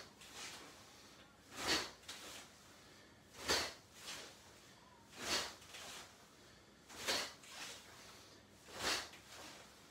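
Karate punches with a strong draw hand, thrown on a steady self-count: a sharp swish about every 1.8 seconds, each followed by a softer one as the hand snaps back.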